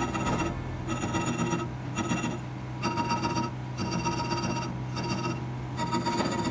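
Rhythmic hand-filing strokes on the knife, about one a second, scraping with a ringing edge over a steady low hum.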